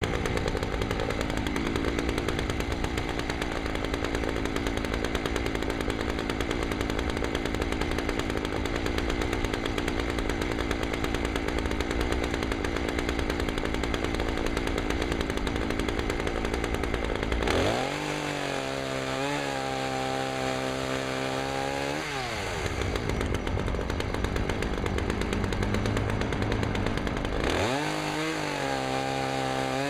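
Chainsaw cutting through limbs for a long stretch, then revving freely with a clear steady engine note for a few seconds. It cuts again, and near the end revs up once more.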